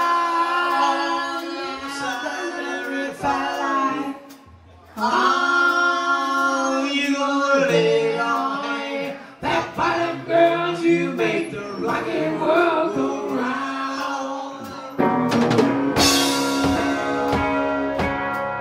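A live rock band performing: sung vocals over sustained chords, dropping out briefly about four seconds in. Near the end the full band comes in with drums and a cymbal crash.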